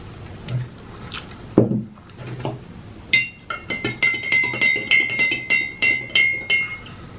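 A drinking glass clinking over and over as fingers work inside it, about three clinks a second, with a steady high ringing from the glass. It starts about three seconds in and stops shortly before the end. Soft chewing sounds come before it.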